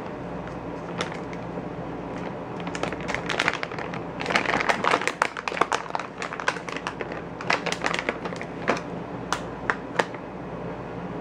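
A run of irregular sharp clicks and crackles, thickest in the middle, over a steady low hum.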